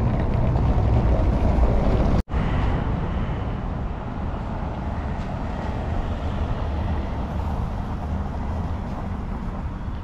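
Street traffic: a city bus's engine rumble as it drives along a cobbled street, loudest in the first two seconds, broken by a sudden brief dropout. After it the traffic noise runs on steadily and a little quieter, with a car going over the cobbles.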